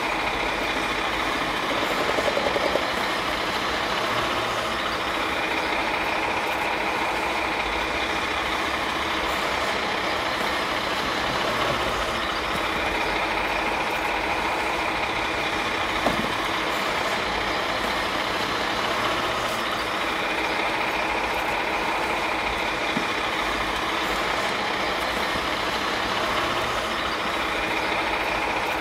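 Garbage truck engine running steadily at idle, with a slow swell in the sound about every seven seconds.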